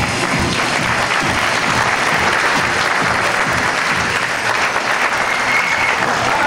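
Theatre audience applauding, with stage music and its steady low beat running underneath; a short high tone sounds about five seconds in.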